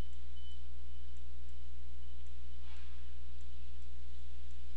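Steady low electrical hum with faint, light ticks about twice a second, and a brief soft noise near the middle.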